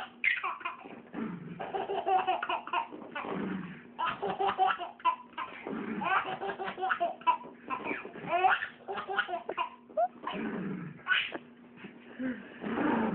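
Baby laughing in repeated fits of belly laughter.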